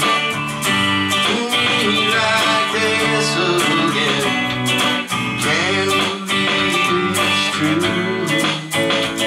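A man singing a country song while strumming an electric guitar.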